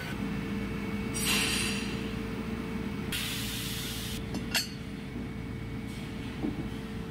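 Metal lathe running with a steady hum and a held tone. Two bursts of hiss come about a second in and again around three to four seconds in, and a sharp click follows about four and a half seconds in.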